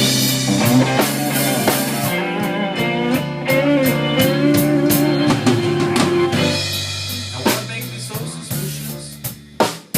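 Rock music with a drum kit and guitar playing; it quietens over the last few seconds.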